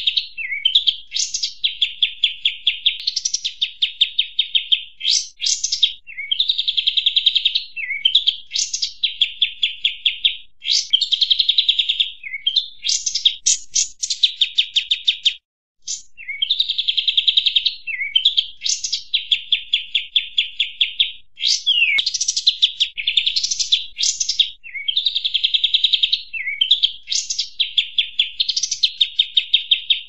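Bird-lure recording of the 'kapas tembak' bird's noisy chattering calls. Quick buzzy trills with sharp high notes repeat in bursts about every two seconds. The sound cuts out for a moment about halfway through, then starts again.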